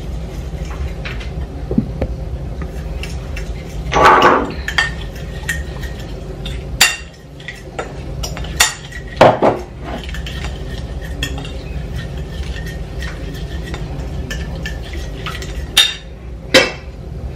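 A metal fork clinking and scraping against a bowl while stirring a marinade, in quick irregular strokes, with a few louder knocks now and then.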